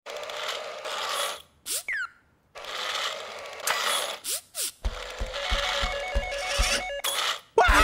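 Cartoon sound effects of small toy robots on treads: bursts of mechanical whirring and clicking with short sliding pitch glides. From about five seconds in come an even thumping of about four a second and short repeated beeping tones.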